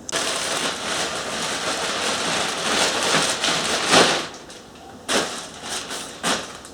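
Dense crackling, rustling noise for about four seconds, then a few short sharp crackles near the end.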